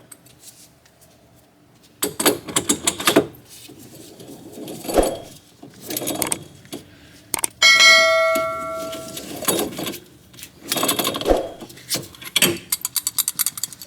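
Worn wheel bearing in a 2008 Dodge Charger's hub assembly being turned by hand, grinding in several rough bursts: the bearing is bad. Near the middle a metal part is struck and rings like a bell, fading over about two seconds.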